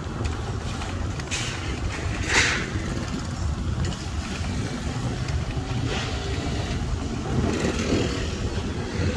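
Street traffic passing an e-bike on the move, over a steady low rumble of wind on the microphone. A brief louder passing sound comes about two and a half seconds in.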